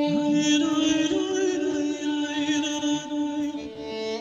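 Chant-like singing over a steady, held drone note, as in a station's intro music.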